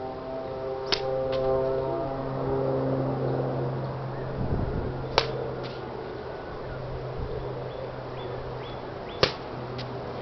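Katana cutting through a three-layer rolled beach-mat target three times, each cut a single sharp crack followed about half a second later by a lighter tap. A steady low engine drone runs underneath.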